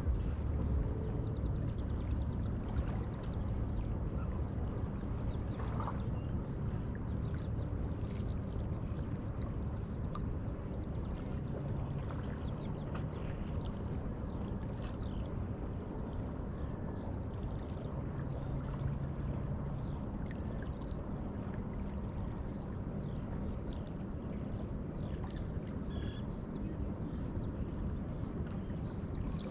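River water lapping and splashing, with a steady low engine hum from a boat on the river and a few faint bird chirps.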